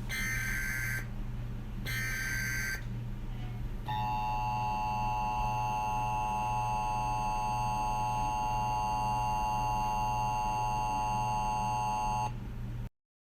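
Emergency Alert System-style tones: two short bursts of data tones about a second long, then from about four seconds in a steady two-tone attention signal that holds for about eight seconds. A low steady hum sits underneath, and the sound cuts off suddenly near the end.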